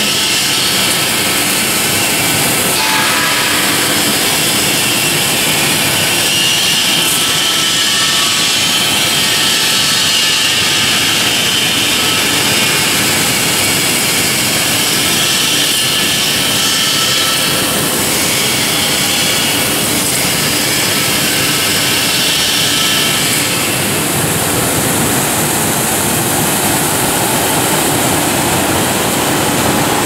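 Industrial strawberry bubble-washing machine running: a steady rush of water from the spray bars and bubbling wash tank, mixed with the running of the machine's conveyor drive.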